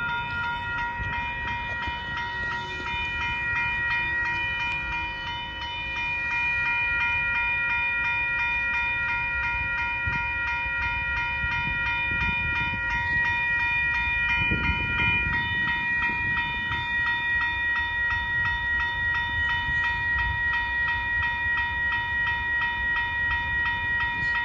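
Railroad crossing warning bell ringing in quick, even, repeated dings, the signal that a train is approaching the crossing. A low rumble runs beneath it and swells briefly about midway.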